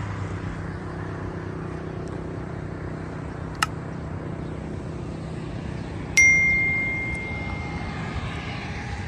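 Steady low road-traffic hum. A single sharp click comes a little before halfway, then a bright bell ding that rings out and fades over about two seconds: the click-and-bell sound effect of an on-screen subscribe-button animation.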